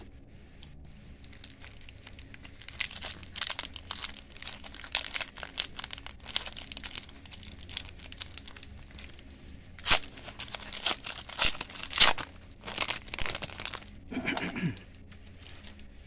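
Shiny wrapper of a 1992-93 Fleer Ultra hockey card pack crinkling as it is worked open by hand, with a couple of sharper, louder rips about ten and twelve seconds in as it tears.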